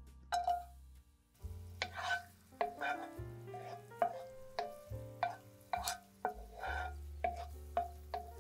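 A utensil stirring in a dish, clinking against it in irregular taps about twice a second, over soft background piano music.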